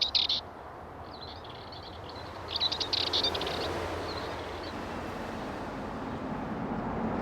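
Dartford warbler singing short, rapid warbling phrases, the loudest near the middle, over a steady hiss of road traffic noise that grows louder toward the end.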